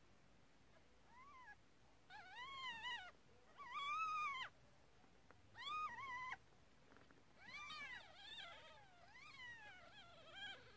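Newborn kittens mewing: a run of short, high cries, each rising and falling in pitch, coming one after another, the loudest about four seconds in.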